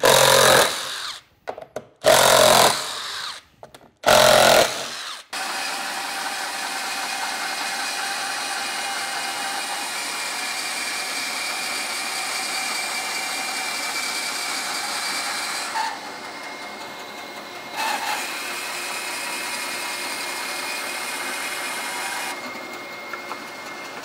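A cordless driver runs in three short bursts, backing screws out of a laminated birch-ply leg-vise chop. Then a bandsaw runs steadily while ripping a long taper through the plywood, the cutting noise easing off briefly twice in the second half.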